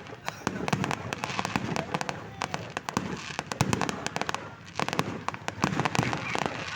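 Fireworks going off in a rapid, unbroken string of sharp cracks and pops, thickest in a few clusters.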